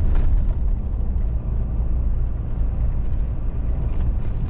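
Steady low rumble of a truck driving along: engine and road noise.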